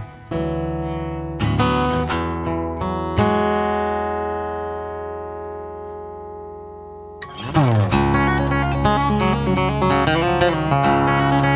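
Background music on acoustic guitar. Strummed chords, one left to ring and fade for about four seconds, then busier playing starts again a little past halfway.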